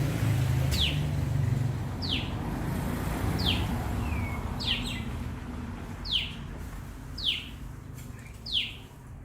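Common tailorbird calling: a sharp note sweeping down in pitch, repeated about every second and a quarter, seven times. A low background rumble fades out over the first two seconds.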